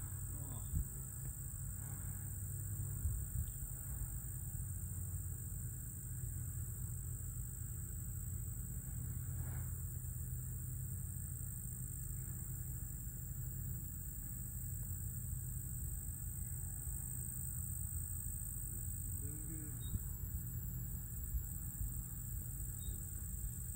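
Wind buffeting the microphone in an uneven low rumble, with a steady high-pitched hiss or drone behind it.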